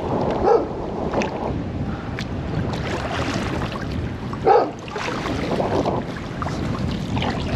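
Steady wind rushing over the microphone, with water sounds from a kayak being paddled.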